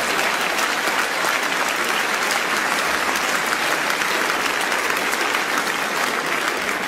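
Large theatre audience applauding, a dense steady clatter of clapping that eases slightly near the end.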